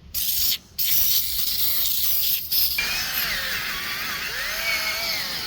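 Spray hissing as cleaner is sprayed onto a transmission case to clean it. It comes in short bursts at first, then as one continuous spray with a wavering whistle-like tone over it from about three seconds in.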